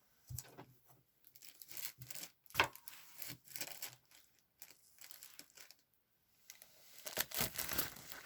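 Paper or packaging rustling and crinkling in a series of short, irregular bursts, as if being handled, with brief quiet gaps between them; the busiest stretch comes near the end.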